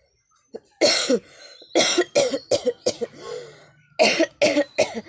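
A person coughing deliberately in fits: one cough, then two quick runs of about four coughs each.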